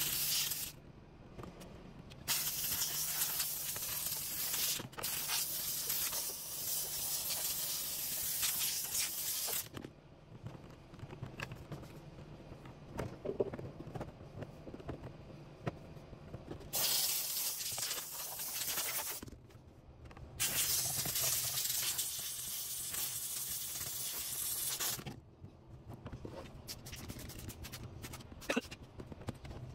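Steam cleaner wand blasting steam in several long hissing bursts of a few seconds each, with pauses between, over a steady low hum.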